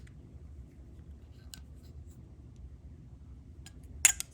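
Small Phillips screw being driven into the battery cover of a TT Artisan S-2 light meter: a few faint ticks and scrapes of the screwdriver, then one sharp click near the end.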